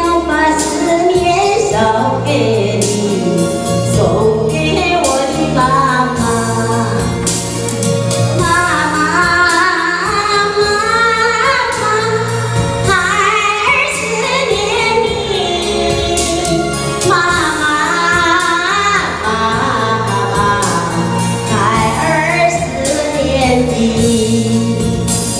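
A woman sings a Chinese song solo into a handheld microphone over instrumental accompaniment, her voice gliding up and down through long drawn-out phrases.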